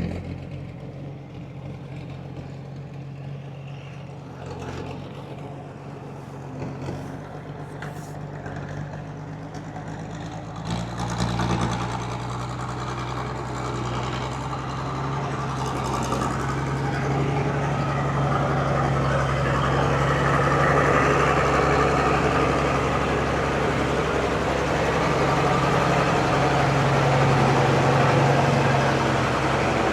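Engine of an old self-propelled bale wagon running steadily. It gets louder about eleven seconds in and keeps building toward the end.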